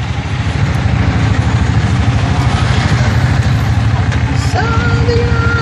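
Engine of a Bajaj vehicle running steadily with road noise as it drives through slow town traffic, heard from the driver's seat. About four and a half seconds in, a held higher tone joins it.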